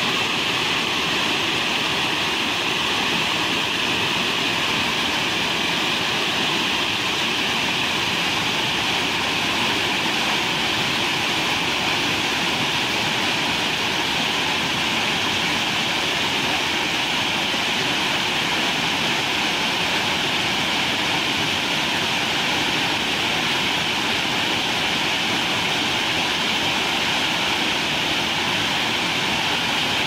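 Amiakhum Waterfall cascading over stepped rock ledges into a churning pool: a steady, even rush of falling water that does not change.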